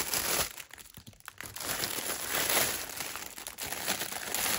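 Clear plastic packaging bag crinkling and rustling in bursts as it is cut open and pulled off a plush toy.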